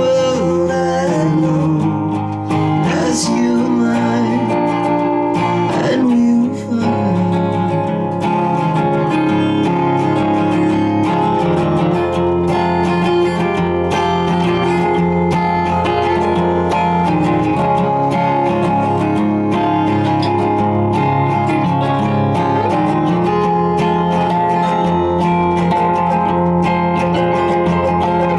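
Live rock band playing with guitars strumming steady sustained chords; a sung line trails off in the first few seconds, then the music goes on as an instrumental passage.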